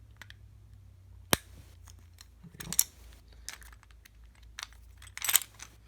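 Small clicks and light metallic rattles of a lock pick and tension wrench working in a Master Lock 410 lockout padlock as it is picked open. A single sharp click about a second in, followed by further clicks and rattles of the opened lock and tools.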